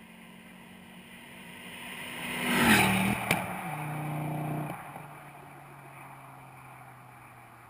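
Ford Focus ST with a 3-inch decat exhaust driving past: the exhaust note builds as the car approaches, peaks about three seconds in with a sharp crack just after, then drops in pitch and fades as it goes away.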